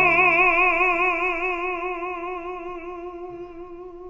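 Operatic baritone voice holding one long sung note with a wide, even vibrato, slowly fading. A low sustained chord beneath it ends about half a second in, leaving the voice alone.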